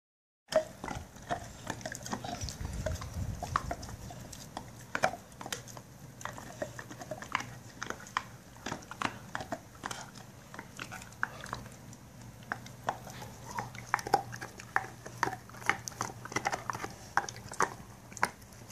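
Pit bull gnawing a lamb bone: irregular crunching and clicking of teeth on bone.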